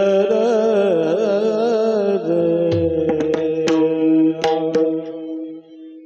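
Male voices singing a slow, drawn-out Varkari abhang phrase over a steady drone note, with a few sharp pakhawaj and cymbal strokes in the middle. Near the end the voices stop and the drone note is left sounding alone, much quieter.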